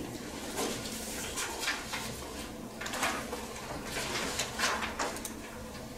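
Paper rustling and being shuffled on tables, with a few brief light handling sounds scattered through, over the low hum of the room.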